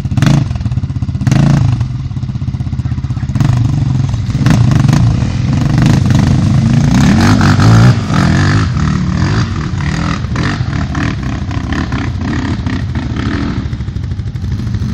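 Quad bike engines running and revving close by as the machines pull away up a steep dirt climb. The revving builds to its loudest about seven or eight seconds in, then drops off to a steadier engine note.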